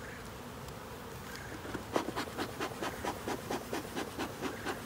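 Bee smoker's bellows pumped repeatedly, a quick even run of puffs starting about two seconds in and lasting nearly three seconds, over the steady hum of honey bees working the open hive.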